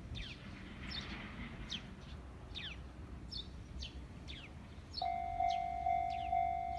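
Small birds chirping with quick falling notes. About five seconds in, a Japanese railway level crossing's electronic warning bell starts ringing, about two dings a second, the signal that a train is approaching.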